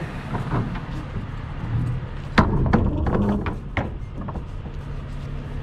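Metal clicks and knocks from the semi-trailer's rear swing-door latches and lock bars being worked by hand, with one loud bang about two and a half seconds in, over a steady low hum.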